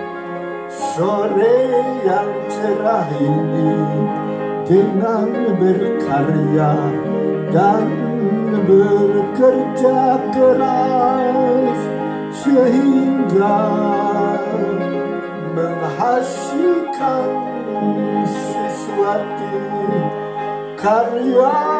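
Upright piano being played, with a man singing along.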